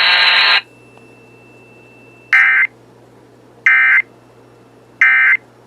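Three short bursts of EAS digital data screech, evenly spaced about 1.3 s apart. This is the end-of-message code sent three times to close an Emergency Alert System warning on weather radio. It follows a loud steady noise that cuts off about half a second in.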